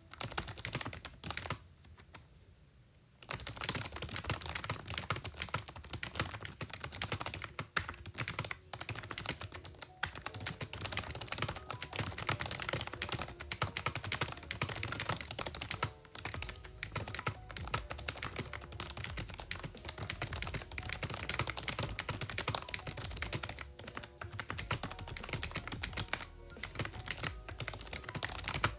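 Typing test on a cheap, slightly modded membrane-switch "gaming" keyboard: a fast, continuous run of key presses, with a brief pause about two seconds in.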